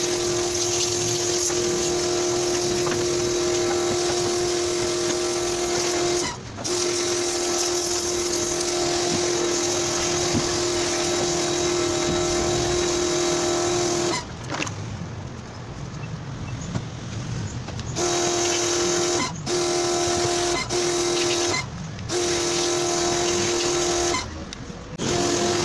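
Electric pressure washer running and spraying water: a steady motor whine over the hiss of the jet. It cuts off and restarts abruptly several times as the trigger is released and squeezed, with one pause of about four seconds in the middle.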